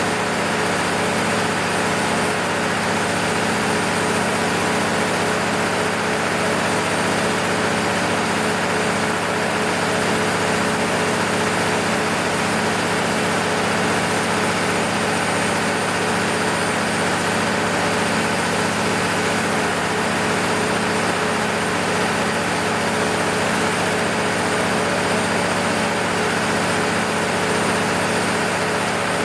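Freshly overhauled MEP-006A 60 kW military generator set's six-cylinder diesel engine running at a steady, constant speed under load test. The engine note and its hum hold even throughout, with no change in speed.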